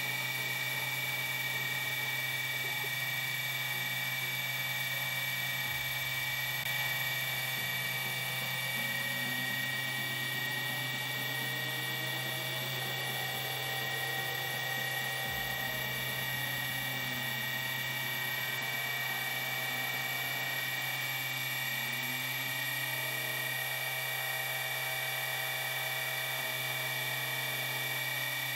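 CNC milling machine cutting a brass electrode with an end mill: a steady spindle whine, with the axis motors gliding up and down in pitch as the cutter follows the curved toolpath.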